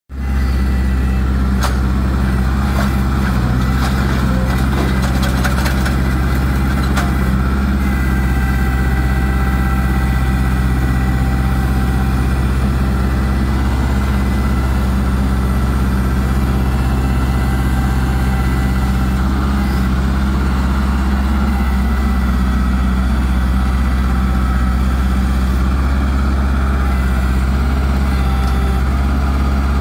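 Farm tractor engine running steadily at one unchanging speed, a constant low drone, while its front loader carries and lifts a hay bale.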